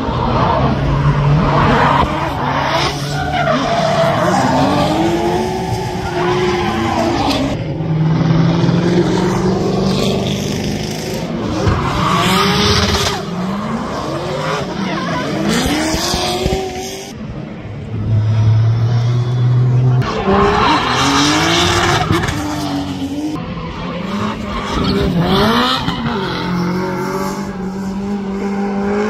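Drift cars, BMW 3 Series coupes and a Corvette, sliding through the corner one after another. Their engines rev up and drop back again and again on the throttle, and the tyres screech in long loud bursts as the cars go sideways.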